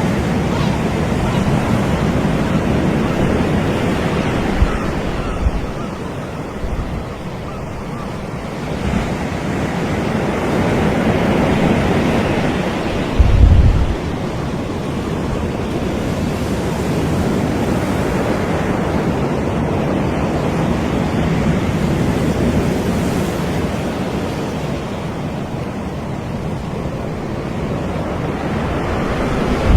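Surf washing onto a beach, a steady rush of breaking waves that swells and eases over several seconds. Wind buffets the microphone in short low thumps, the loudest about 13 seconds in.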